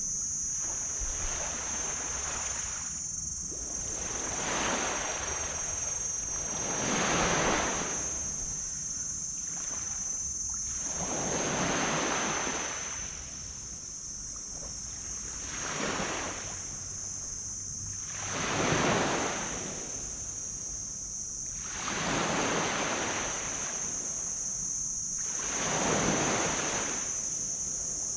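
Small tropical waves breaking and washing up a black sand beach, each surge swelling and fading, about seven in all, one every three to four seconds. A steady high-pitched hiss runs underneath.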